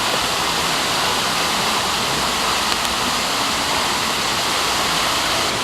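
Steady rushing of falling water from an indoor waterfall, an even wash of noise with no breaks.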